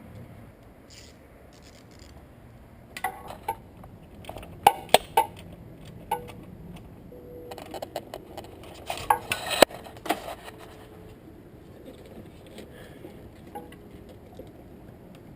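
Metal hand tools and parts clinking and clanking. There are a few sharp knocks from about three seconds in, the loudest just before five seconds, then a busier clatter from about eight to ten seconds.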